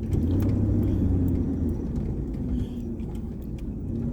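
Pickup truck driving slowly over a rough dirt track: a steady low engine and road rumble, heaviest for the first couple of seconds and then easing a little, with a few small rattles and clicks.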